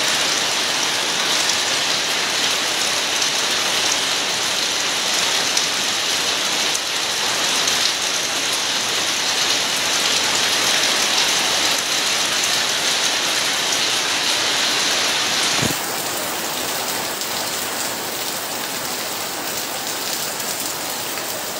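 Rain falling steadily in a dense, even hiss. About sixteen seconds in, the sound drops abruptly a little quieter and duller, with a brief low thud.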